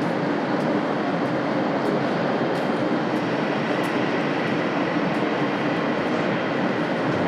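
Railway station platform ambience: a steady mechanical rumble and hum, with faint light ticks scattered through it.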